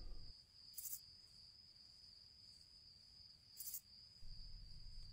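Near silence with a faint, steady, high-pitched cricket trill, and two brief higher chirps about a second in and again past three seconds in.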